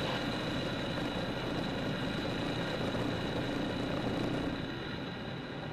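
Zenith CH 650 light aircraft's engine idling with the propeller turning during the landing rollout, heard from inside the cockpit. The engine sound drops slightly about four and a half seconds in.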